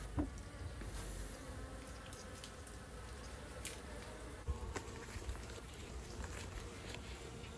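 Honey bees buzzing from an opened mini nuc hive: a steady hum, with a couple of light clicks midway.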